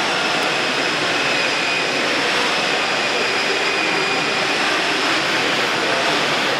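Steady loud hiss of factory machinery running, with a faint high-pitched whine held through it.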